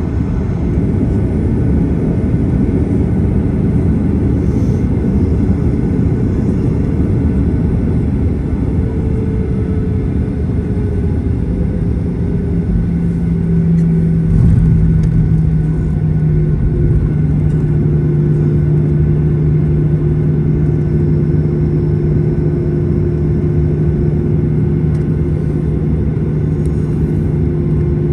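Cabin noise of a Boeing 737-800 taxiing, heard from a window seat over the wing: a steady rumble of its CFM56 engines at taxi power and the rolling airframe. A steady low hum joins about twelve seconds in and holds.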